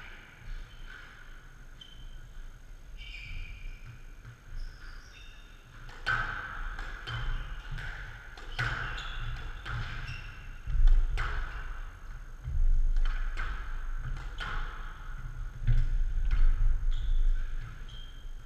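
Squash rally: the ball struck by rackets and smacking off the court walls in a quick run of sharp knocks, starting about six seconds in, with shoes squeaking on the court floor.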